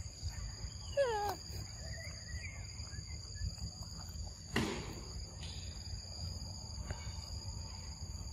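A macaque gives one short squealing call that falls in pitch about a second in. A brief low sound follows about halfway through, over a steady high drone.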